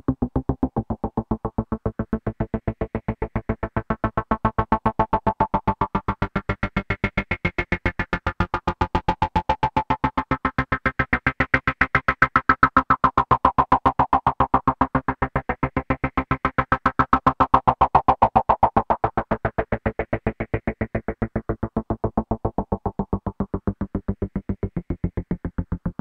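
Electronic synthesizer bass loop with strong bass, repeating in fast, even pulses. Its tone grows brighter toward the middle and mellows again near the end.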